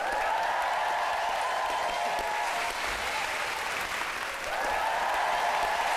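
Studio audience applauding and cheering.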